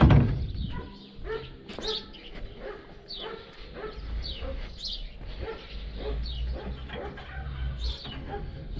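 A dog whining and yipping over and over in short falling cries, with a loud knock right at the start.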